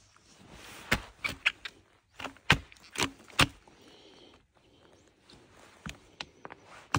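Footsteps of spiked caulk boots on snow-dusted logs: sharp crunches and knocks as the spikes bite into the bark, a quick run of steps between about one and three and a half seconds in, then a few more near the end.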